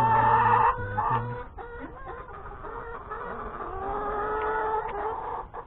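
Rooster crowing: the end of one crow in the first moment, then a second long, drawn-out crow from about halfway through until near the end.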